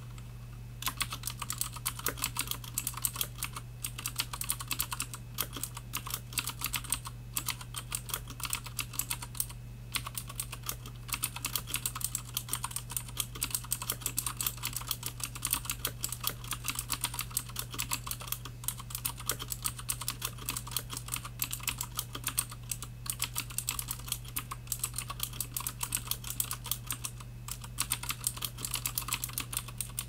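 Fast, continuous typing on an Ozone Strike Pro mechanical keyboard with clicky Cherry MX Blue switches and thin stock ABS keycaps, starting about a second in with a few brief pauses. A steady low hum runs underneath.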